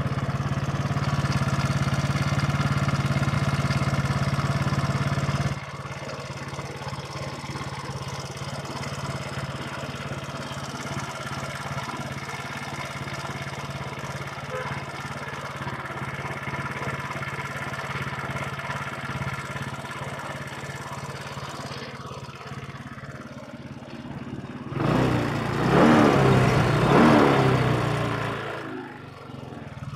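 Carbureted 2006 Yamaha Cygnus X 125 cc single-cylinder scooter engine running, which the owner posts for an abnormal engine noise. It runs at a higher speed for about the first five seconds, then settles to a steady idle, and is revved up about 25 seconds in, dropping back near the end before picking up again.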